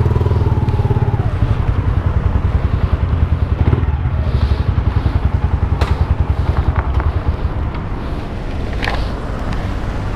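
Motorcycle engine running at low revs with a throbbing exhaust note, then easing to a quieter idle about two-thirds of the way through. There are a few short clicks.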